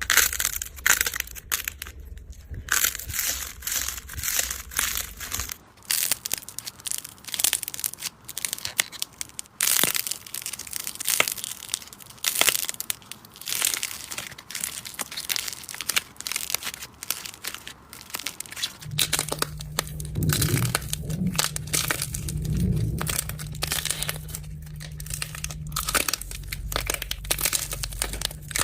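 Slime being squeezed, pressed and poked by hand, giving a dense run of crisp crackles and pops that changes character a few times from clip to clip.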